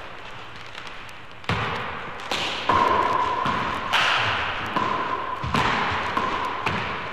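A ball striking hard and bouncing in an echoing indoor court, the hits coming at uneven intervals of about a second, with a steady high tone under the later hits. The first second and a half is quieter, before the hits start.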